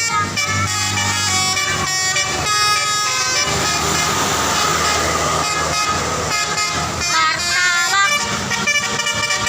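Multi-tone "telolet" bus air horn (basuri type) playing a quick tune of changing notes. A hissing rush of noise runs under it from about three and a half to six seconds in.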